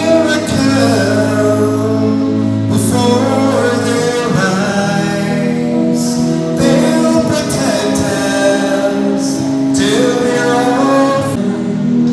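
Music: a song with a singing voice over long held chords.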